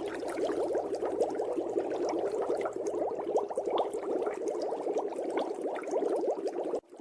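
Water bubbling continuously, a dense run of quick gurgling pops like air bubbles rising through water; it cuts out for a moment near the end.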